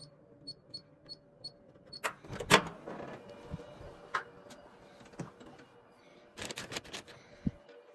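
Electronic door-access keypad beeping five times as a code is keyed in, short high beeps about three a second. About two seconds in a loud clack as the door lock releases and the door is opened, followed by scattered knocks and rustling of cardboard boxes.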